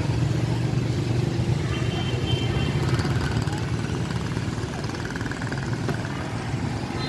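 Motorbike traffic passing close by, engines running in a steady low drone.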